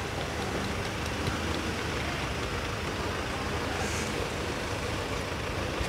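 Steady outdoor background noise: a low rumble with a hiss over it, with no distinct events.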